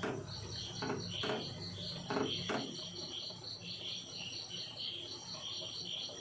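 A wooden spatula stirring rice in a two-handled kadai of boiling water, giving a few short scraping strokes in the first half. A cricket chirps steadily behind it, about four or five chirps a second.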